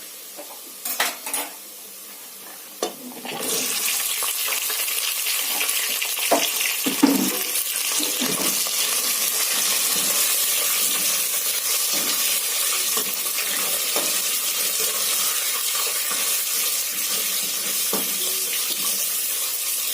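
Meat sizzling steadily in hot oil with golden-brown onions, garlic and ginger. The sizzle starts suddenly about three seconds in as the meat goes into the pot. A few knocks come before it.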